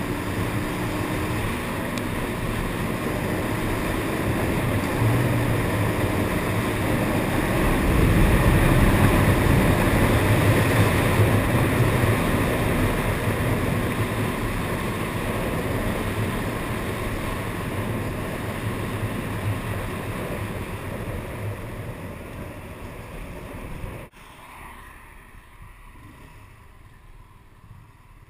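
Wind rushing over the microphone of a Honda CBR125R motorcycle riding at speed, with its single-cylinder four-stroke engine running underneath. The rush is loudest about eight to twelve seconds in and then eases off, and drops suddenly about twenty-four seconds in, leaving a much quieter engine sound as the bike slows.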